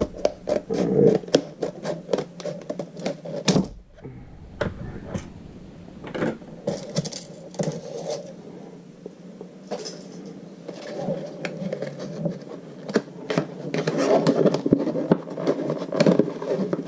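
Hands unpacking and handling a small stainless-steel folding knife: scratching and scraping with many sharp clicks. There is a short lull about four seconds in.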